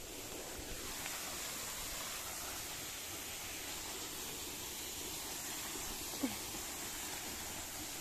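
Steady rushing hiss of a waterfall the trail is approaching, with a short falling sound about six seconds in.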